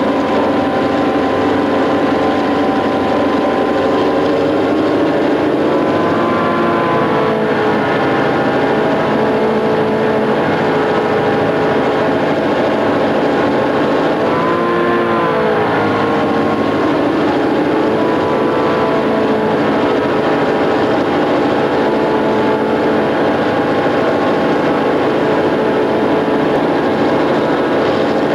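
EMD GP9 diesel-electric locomotive's two-stroke V16 567 engine running steadily while pulling the train, heard from the cab. Its note dips and recovers briefly twice, about six and fifteen seconds in.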